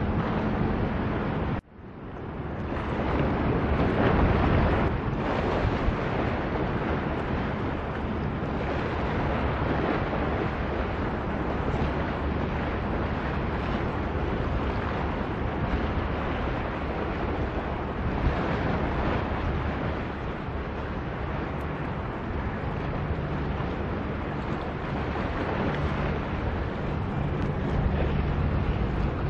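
Strong wind rushing and buffeting across the microphone, over the wash of open sea water and a low steady hum. The sound cuts out sharply for a moment about two seconds in, then comes back.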